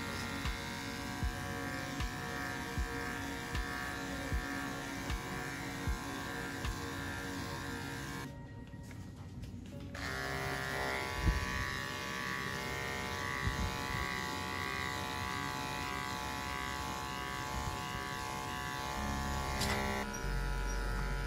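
Background music with a steady beat over the steady buzz of electric pet clippers shaving a dog's coat. The sound thins briefly about eight seconds in, then carries on.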